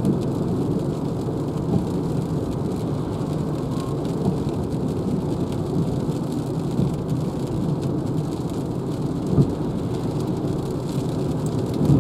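Steady low rumble of rain and wet-road tyre noise heard inside the cabin of a Renault Zoe electric car, with no engine note, and two brief thumps.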